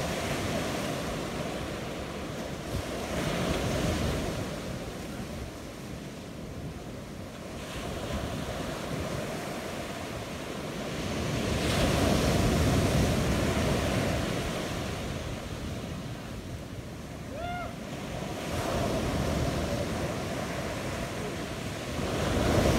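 Ocean surf breaking, a steady rush that swells and ebbs every several seconds, with wind buffeting the microphone.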